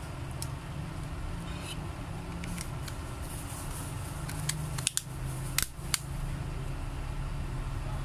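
Sharp plastic clicks and taps from a Cherry Mobile Flare Y3 smartphone being handled as its battery is fitted back in. The loudest cluster of clicks comes about five to six seconds in, over a steady low hum.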